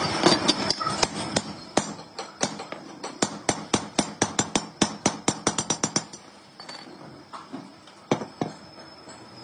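Hand hammer striking a machined steel tractor differential case: a fast run of sharp metallic blows, several a second, for about five seconds, then a few scattered blows, as the two halves of the case are driven together.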